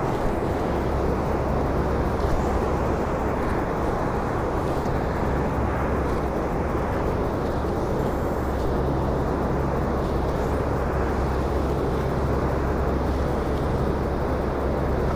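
Water pouring over a dam spillway: a steady, even rush that does not change.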